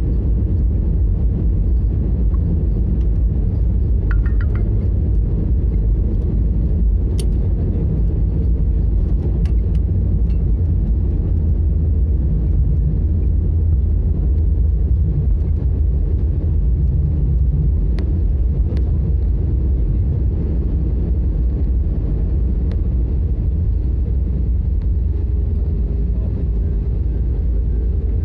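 Steady low rumble inside an airliner cabin as the plane rolls along the runway after landing: jet engine noise and the wheels on the tarmac, with a few light clicks and rattles from the cabin.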